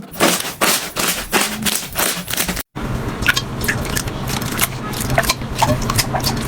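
Slime being squeezed and poked by hand, giving rapid crackling and popping clicks. The sound cuts out briefly about two and a half seconds in, then goes on with a low hum under the clicks.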